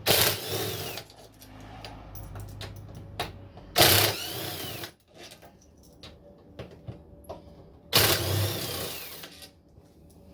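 Power drill-driver backing out the 10 mm bolts that hold an LG front-load washer's motor stator: three bursts about a second each, the motor whine rising and then falling, with small clicks and handling noise between.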